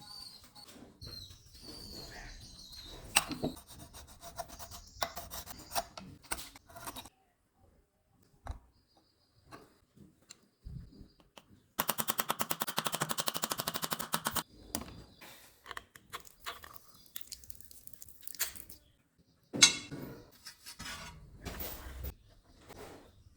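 Hand repair work on a broken plastic water-cooler tap: scattered taps, clicks and rubbing, with a run of rapid, even scraping strokes lasting about two and a half seconds near the middle.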